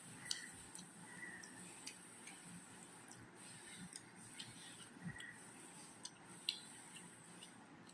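Close-miked eating sounds: chewing rice and curry, with soft, irregular mouth clicks and smacks.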